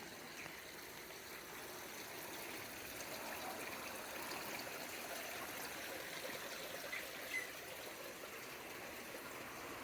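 Steady, faint rushing noise like trickling water, with one brief high chirp about seven seconds in.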